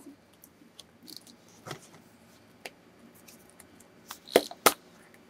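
Scattered small clicks and taps of plastic surprise eggs and toys being handled, with a few sharper clicks near the end.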